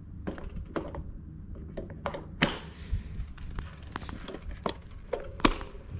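Road bike setting off on a concrete driveway: irregular sharp clicks and knocks from the bike's drivetrain and parts over a low rumble from the tyres and wind, with the sharpest clicks about two and a half and five and a half seconds in.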